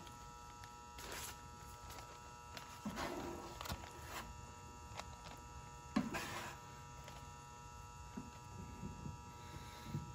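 Putty knife scraping softened paint and stripper sludge off a car body panel in a few short strokes, with newspaper rustling as the gunk is wiped off onto it; a sharper knock about six seconds in. A steady electrical hum runs underneath.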